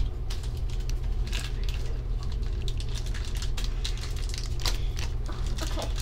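A crinkly foil toy blind bag being handled and torn open by hand, with irregular crackles and rustles.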